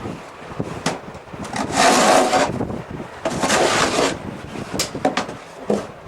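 Snow being scraped or brushed away in long strokes, two main strokes about two and three and a half seconds in, with shorter scrapes and knocks between.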